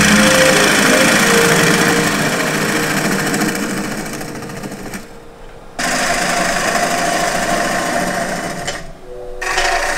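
Bowl gouge cutting movingui wood on a spinning wood lathe: a steady rough scraping hiss of the cut over the hum of the lathe motor. The sound drops away briefly twice, about halfway through and near the end, and comes back suddenly.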